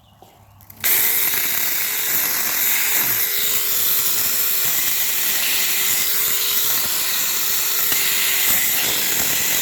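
Cordless 6-inch mini chainsaw starting up about a second in and running steadily while cutting into a privet trunk, its motor pitch dipping briefly about three seconds in.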